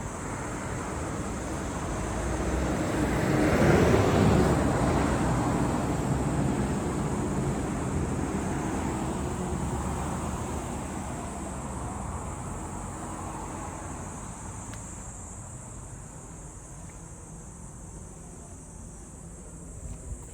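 A motor vehicle running, swelling to its loudest about four seconds in and then slowly fading away.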